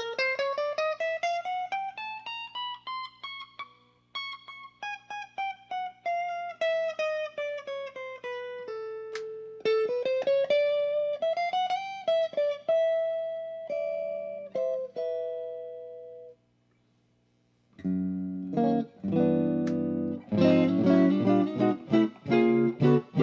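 Tokai Silver Star TSS-38 electric guitar playing a quick single-note line that climbs steadily in pitch, then falling phrases and a few held notes. After a short break about 17 seconds in, chords are struck in a quick, even rhythm.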